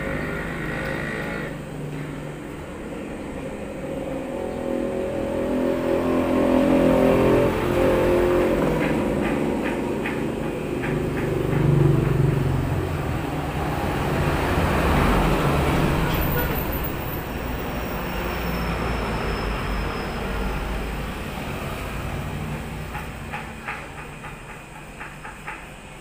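Road traffic passing outside, a broad engine noise that swells and fades several times, loudest about a third to halfway in. Under it, electric hair clippers run during a haircut, with runs of light clicks around the middle and near the end.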